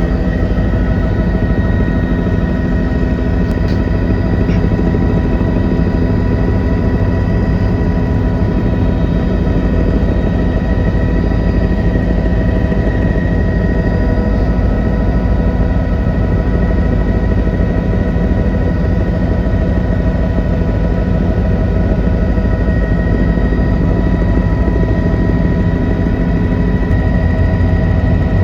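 Helicopter in flight: a steady, loud drone of engine and rotors, with a few steady whining tones over it.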